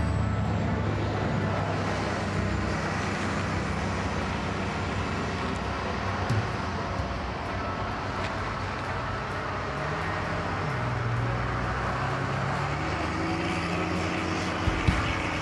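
Diesel locomotive engine running at low throttle as it moves slowly, a steady low drone with a hiss above it. About ten seconds in the engine tone steps up in pitch, and a couple of short knocks come through, one near the end.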